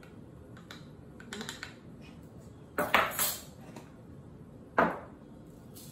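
Metal measuring spoon clinking and tapping while salt is scooped from a wooden salt box into a stainless steel mixing bowl. There are a few light taps, then a louder clatter about three seconds in and a single sharp knock near the end.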